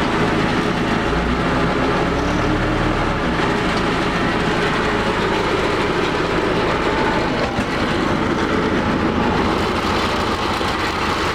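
1986 John Deere 310C backhoe's diesel engine running steadily, freshly started after sitting unused for a long time.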